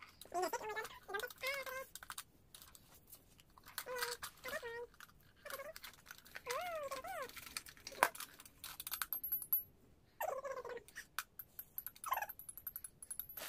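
A baby babbling in short high-pitched calls, one of them wavering up and down, with sharp clicks and rustling as a plastic shape-sorter activity cube and wrapping paper are handled.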